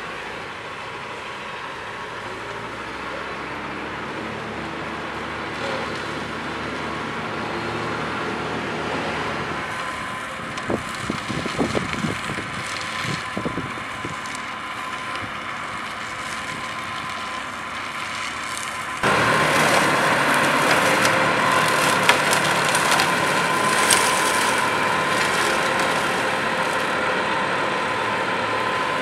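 Tractors working crane-mounted mowing heads on a grassy bank: steady engine and mower noise with a faint whine, brief irregular crackling from about ten to fourteen seconds in, and the sound jumping abruptly louder about two-thirds of the way through.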